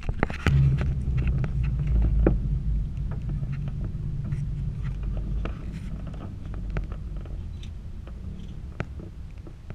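Aerial tram cabin running along its cable: a steady low rumble and hum with scattered clicks and knocks, the rumble gradually easing.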